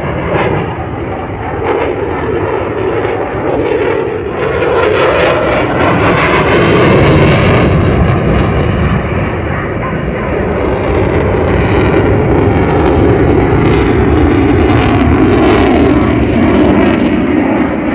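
Eurofighter Typhoon's twin EJ200 turbofans, loud jet noise of the fighter flying a low display manoeuvre, swelling about six seconds in and staying loud.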